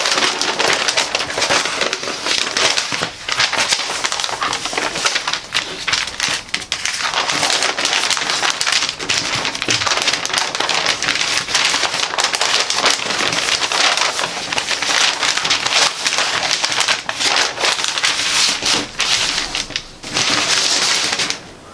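A large folded paper sewing pattern sheet being unfolded and pressed flat by hand: continuous crinkling and rustling of paper, full of small crackles.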